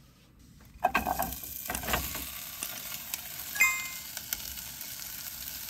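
Hash browns, chicken and onions frying in a pot on a portable butane stove. The sizzling starts abruptly about a second in, with a few knocks, then runs steady. A single ringing clink comes about halfway through.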